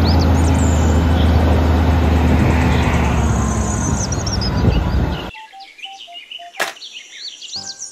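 Diesel engine of an eight-wheel tipper lorry running steadily with a low hum while its hydraulic ram lifts the tipper body, birds chirping over it. About five seconds in it cuts off abruptly, leaving quieter birdsong and a single sharp click.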